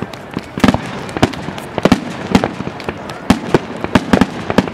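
Aerial fireworks bursting: an irregular run of about a dozen sharp bangs in under five seconds, some coming in quick pairs.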